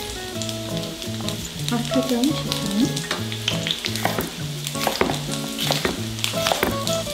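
Onions sizzling as they fry in a pan, with a run of knife chops on a wooden cutting board from about three seconds in, over soft background music.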